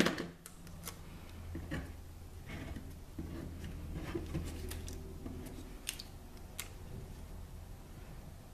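Paper being handled and stuck down with a tape-runner adhesive: scattered light clicks, taps and soft rustles.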